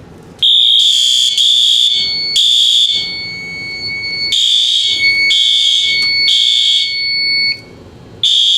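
Fire alarm horns sounding in a temporal-3 evacuation pattern after a pull station is activated: three short blasts, a pause, three more, and a third group starting near the end. A thin steady high tone runs under the horns through the middle.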